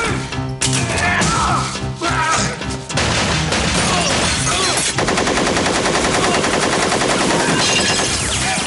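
Action-film sound mix: a struggle with separate hits, then from about five seconds in a long burst of rapid submachine-gun fire smashing porcelain and tile, over music.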